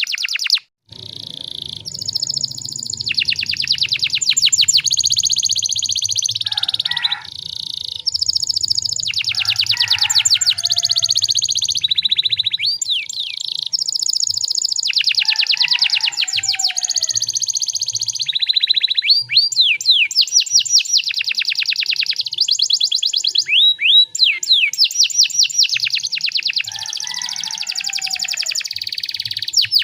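Domestic canary singing a long, fast song of rapid trills and rolling phrases, broken by short pauses, with a few lower chirping notes mixed in.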